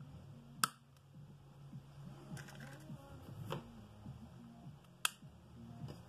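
Small steel balls being pushed one at a time into the ball race of a Saeco/Jura coffee grinder's ring, each seating with a sharp click: three loud clicks and a fainter one, with faint background music underneath.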